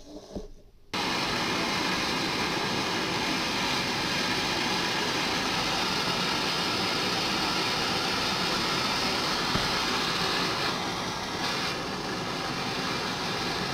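Butane canister blow torch burning with a steady, loud hiss that starts suddenly about a second in, after a few faint handling clicks. Its level dips slightly near the end.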